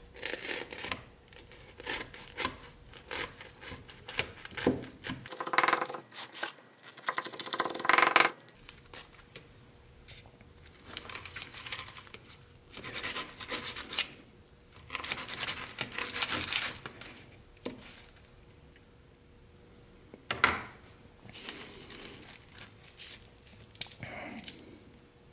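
Knife sawing back and forth through the crisp toasted crust of a sandwich roll on a paper plate, in uneven runs of scraping strokes. A single sharp knock comes about twenty seconds in.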